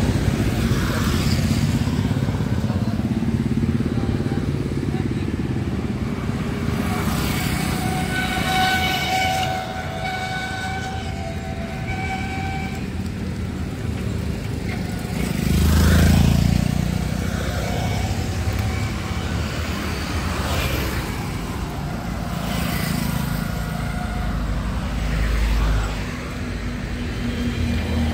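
Road traffic heard from a moving vehicle: a steady low engine rumble, with other vehicles passing every few seconds, loudest about 16 s in.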